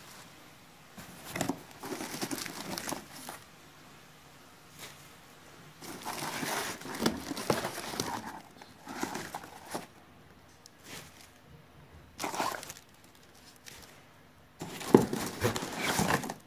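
Shredded cardboard packing filler rustling and crinkling as hands dig through a parts carton, in several irregular bursts with short pauses between.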